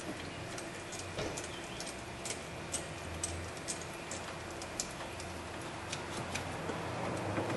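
Light, irregular metallic clicks and taps of a hand wrench working the positive battery cable clamp loose from its terminal, a few clicks a second, over a steady low hum.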